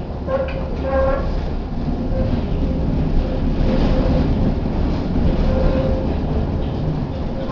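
Tatra T6B5 tram running along the track with a steady low rumble. A steady whine sounds at the start, fades about a second in, and returns faintly on and off.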